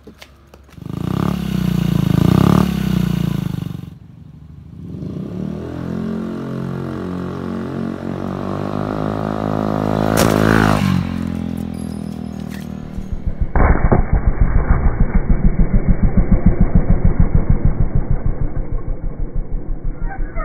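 Honda Ruckus 50 cc four-stroke scooter with a loud aftermarket exhaust: a burst of revs about a second in, then the engine pulls away, its pitch rising steadily for several seconds as the scooter accelerates. In the last third the sound turns muffled, a low, rapid pulsing.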